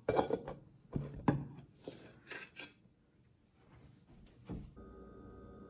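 Metal cake pans knocking and clattering against a plate and tabletop as they are handled with oven mitts: a few sharp knocks in the first second and a half, then lighter clinks. Near the end a steady hum sets in.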